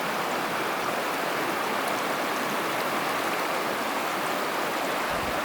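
Steady rushing of the Virgin River's current flowing through the canyon.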